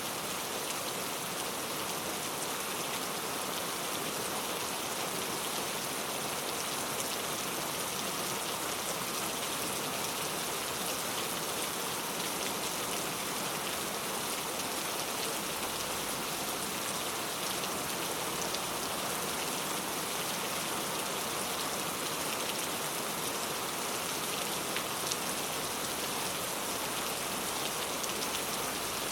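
Heavy rain falling steadily on a surface, a dense even hiss with many fine drop patters.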